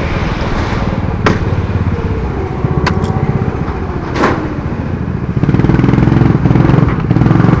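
Onboard sound of a Honda 200cc single-cylinder four-stroke kart engine running as the kart slows into the pit lane after the chequered flag, with a few sharp knocks. The engine gets louder about five and a half seconds in.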